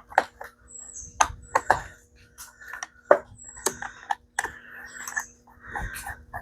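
A run of irregular sharp clicks and knocks of small chainsaw parts and tools being handled during reassembly, over a faint steady hum.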